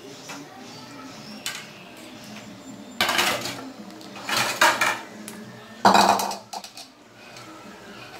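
Metal kitchen tongs clattering and scraping against a wok three times, over the steady sizzle of pizza rolls deep-frying in hot oil.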